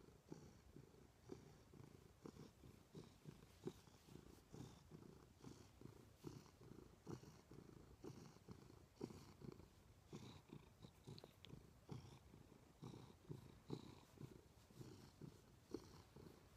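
Orange tabby cat purring continuously while being stroked on the head, a soft rumble that swells and eases about twice a second.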